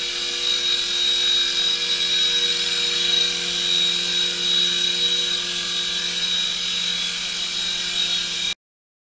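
Silverlite Spycam 2 coaxial RC helicopter flying, its small electric motors and twin rotors giving a steady high-pitched whine over a low hum. The sound cuts off suddenly near the end.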